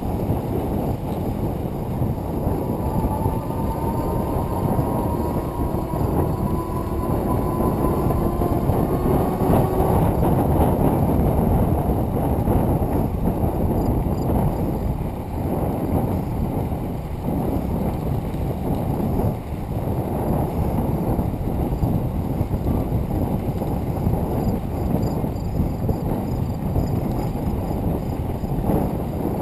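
Wind buffeting a bicycle-mounted microphone while riding, with bicycle tyres rolling on a gravel trail, a steady rushing noise. A faint whine rises slowly in pitch from about three to ten seconds in.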